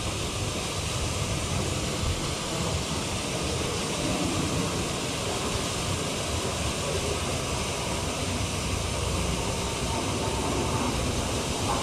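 Wind rushing over the action camera's microphone: a steady hiss with an uneven low rumble.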